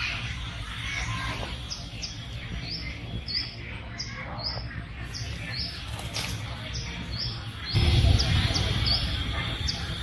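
A bird chirping, short high chirps repeated about twice a second, over a steady outdoor background. A louder low rumble comes in about eight seconds in.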